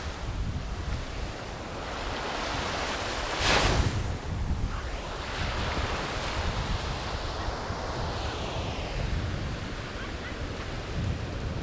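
Surf breaking and washing on a beach in strong wind, with wind buffeting the microphone in a constant low rumble. A sudden louder rush comes about three and a half seconds in, and a long swelling wash follows in the middle.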